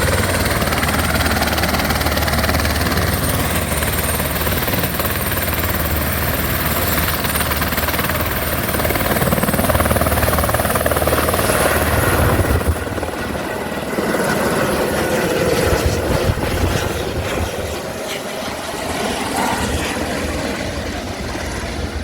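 Tourist helicopter running: a steady high turbine whine over the rotor's low beating. About two-thirds of the way through, the sound drops and the low rotor beat thins out, as if the helicopter is moving off.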